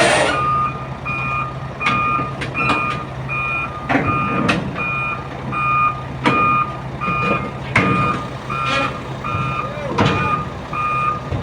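Heavy-equipment backup alarm beeping steadily, about two beeps a second, over a diesel engine running, with occasional sharp knocks and clanks.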